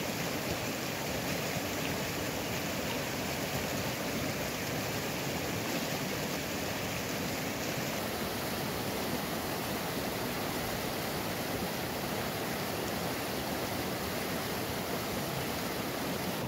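Fast mountain stream rushing over rocks in shallow rapids: a steady, even rush of water.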